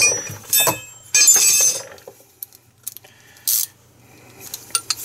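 Metal hand tools clinking as they are handled, with several sharp ringing clinks in the first two seconds, a brief rasp about three and a half seconds in, and a few light clicks near the end.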